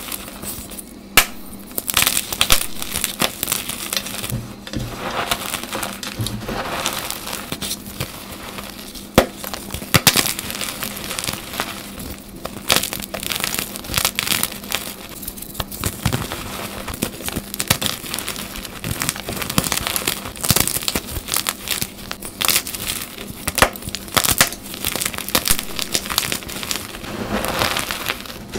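Dyed chalk blocks squeezed and crumbled by hand into powder: a continuous dense crunching and crackling. Near the end the hands knead and rake through the soft chalk crumbs.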